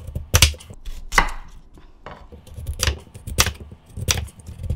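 Kitchen knife slicing a peeled raw potato into thick rounds, each cut ending in a sharp knock of the blade on a wooden cutting board; about five cuts, unevenly spaced.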